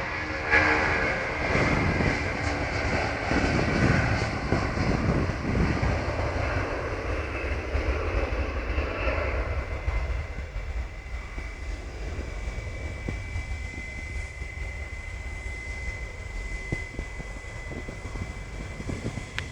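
Boeing 757 twin-engine jet at takeoff: a loud, even engine rumble that fades steadily through the second half, leaving a thin steady whine.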